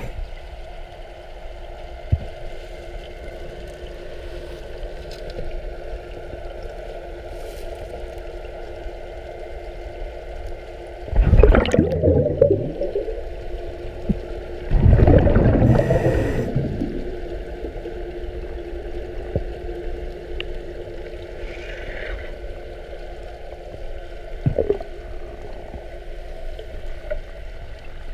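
Underwater sound heard through a GoPro housing on a scuba diver's head: a steady hum, broken about eleven seconds in and again about four seconds later by loud bubbling bursts of the diver's exhaled breath from the regulator, with a smaller burst near the end.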